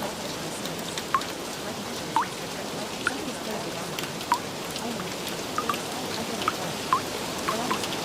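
Steady rain falling, with separate water drops plinking at irregular moments, about one or two a second.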